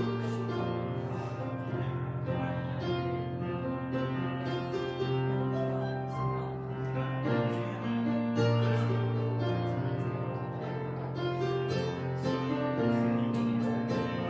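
Instrumental keyboard music, slow held notes and chords changing every second or two.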